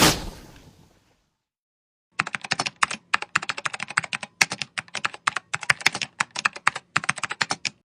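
Fast typing on a computer keyboard: a run of irregular key clicks, several a second, starting about two seconds in. Before it, a loud noisy hit at the very start fades out within the first second.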